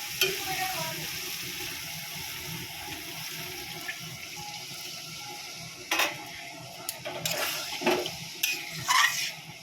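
Water being poured into a pan of fried masala and boiled potatoes, hissing steadily, then a few sharp knocks in the last few seconds.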